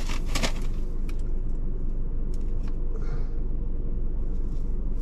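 Steady low rumble inside a car's cabin with the engine running, with a few soft rustling and clicking handling noises near the start and again about three seconds in.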